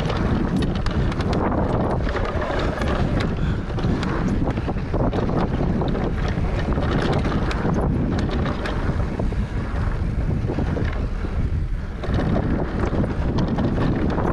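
Mountain bike riding fast down a dry, loose dirt trail: wind buffeting the microphone over the steady rumble of the tyres, with frequent sharp clicks and rattles from the bike and flicked-up stones.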